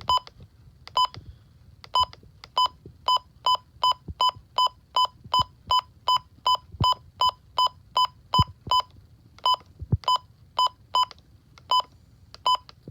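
Midland WR-120 weather radio's key-press beeps: one short, identical electronic beep per button press, repeated many times at uneven spacing, sometimes in quick runs of about three a second, as the clock time is stepped through during setup. A few faint button clicks can be heard between them.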